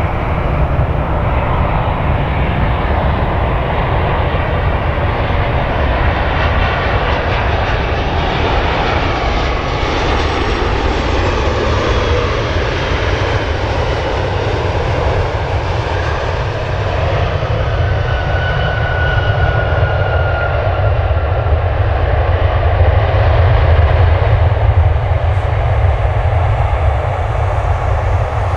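Boeing 737-900ER's CFM56-7B turbofan engines as the airliner comes in over the runway, touches down and rolls out: a steady jet rumble with a faint high whine, growing louder about three-quarters of the way through.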